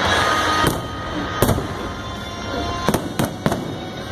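Aerial fireworks display: a dense crackle of glittering stars in the first second, then five sharp bangs of shells bursting, with music playing underneath.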